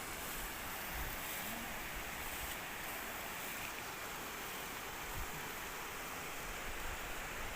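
Steady rushing outdoor background noise, even and unchanging, with a couple of faint soft knocks.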